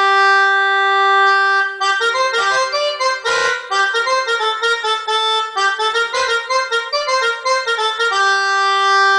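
Instrumental music with a reedy, sustained tone: a held note, then a quick melody of short notes from about two seconds in, settling back onto a held note near the end.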